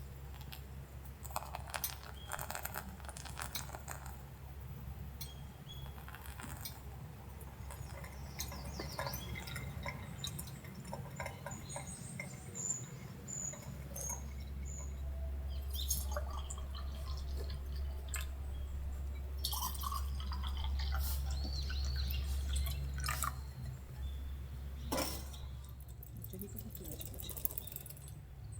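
Scattered small clinks, taps and drips of glass, liquid and camp gear being handled. A low wind rumble on the microphone swells through the middle and eases off near the end.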